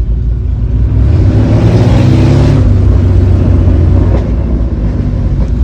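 Porsche 911 Speedster's twin-plug 3.6-litre air-cooled flat-six engine revving up about a second in, its pitch rising for a second or so, then running steadily under way.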